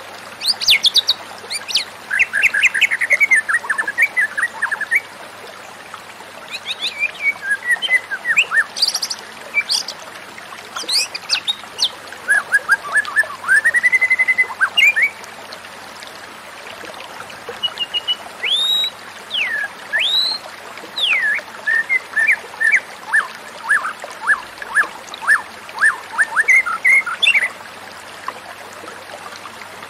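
White-rumped shama singing: runs of varied, quick whistled notes and rising and falling whistles, broken by short pauses.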